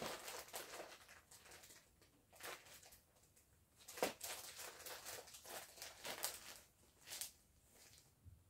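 Plastic-wrapped bundles of yarn rustling and crinkling in irregular bursts as they are handled and pushed into a shelf, with a sharper knock about four seconds in.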